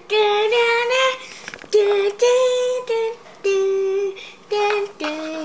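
A child's voice singing a wordless tune in a string of short held notes, each lasting about half a second, with small pitch steps between them. A brief clatter of toy handling about one and a half seconds in.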